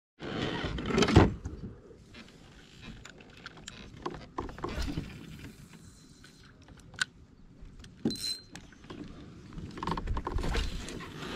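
Handling noise from gear on a plastic kayak: a loud rustle and knock about a second in, then scattered light clicks and rattles.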